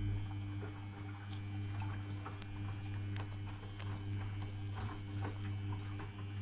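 Samsung front-loading washing machine turning its drum during the second rinse: a steady motor hum with water splashing and scattered small clicks from the tumbling load.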